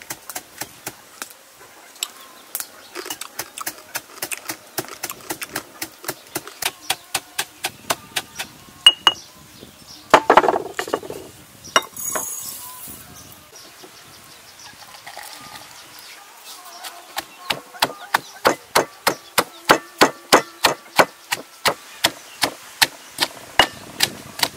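Stone pestle pounding in a heavy stone mortar, two to three knocks a second, grinding toasted rice grains. About halfway through the knocking stops for a short rush of grains being tipped out into a bowl. It resumes a few seconds later as sliced onion is crushed.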